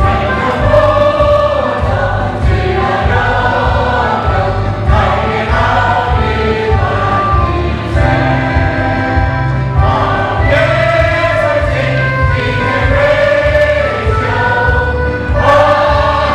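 A large choir singing a Chinese school anthem, with long held notes.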